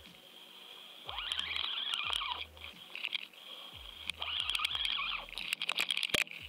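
Underwater camera audio as the camera is pulled through the water on the fishing line while a hooked catfish is reeled in: surges of rushing, churning water about every second and a half, with a run of sharp clicks near the end.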